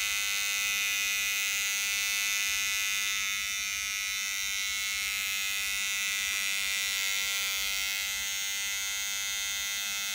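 Small electric pet hair clipper running with a steady, even buzz.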